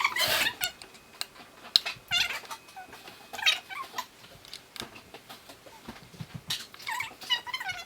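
A cat meowing several times, high calls that bend up and down in pitch, the longest run near the end, with a sharp click about two seconds in.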